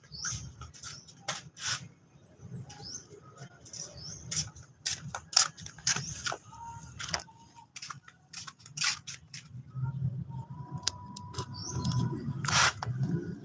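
Rubber flip-flops slapping on a concrete floor in a string of short sharp footsteps, with birds chirping in the background. A louder knock comes near the end.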